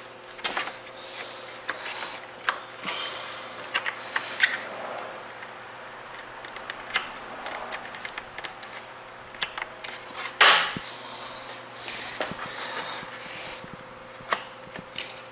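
Plastic mower bagger parts being handled and fitted together: scattered clicks, rattles and rubbing as a corner piece is worked to clip into place, with one louder clack about ten seconds in, over a faint steady hum.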